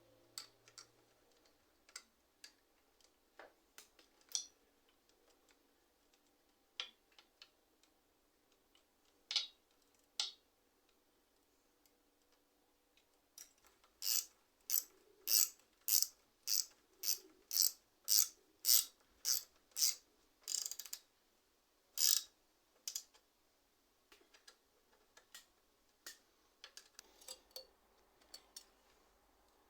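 Mechanical clicks and ratcheting from hand work on a bicycle: scattered single clicks at first, then about halfway in a run of about a dozen quick, evenly spaced strokes, roughly two a second, before it settles back to a few faint clicks.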